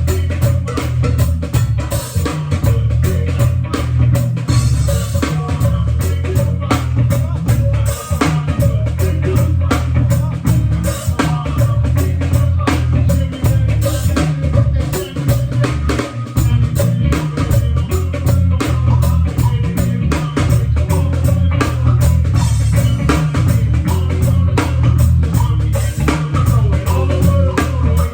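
A band playing: a drum kit keeping a steady, dense beat over a heavy bass line, with guitar.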